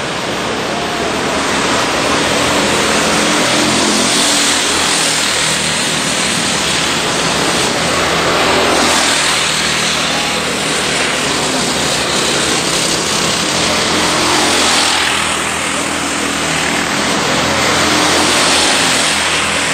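Racing go-kart engines running hard as karts pass on the track, the engine note rising and falling with acceleration and braking. The sound swells several times as the karts come by.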